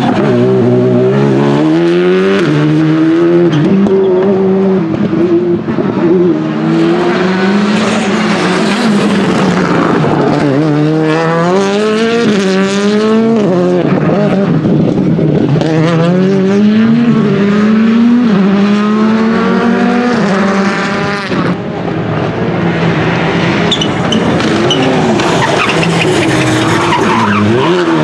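Rally car engine at high revs, its pitch climbing under acceleration and falling back again and again at gear changes and lifts, with a brief lift about three-quarters of the way through. Tyre noise from skidding runs underneath.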